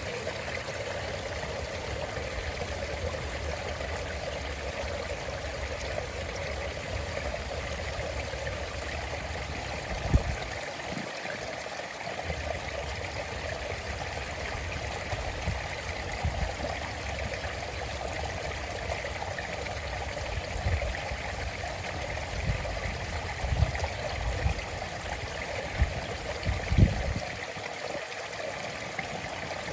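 A stream flowing steadily with an even rushing and trickling of water. Occasional short low thuds break through, once about ten seconds in and several close together near the end.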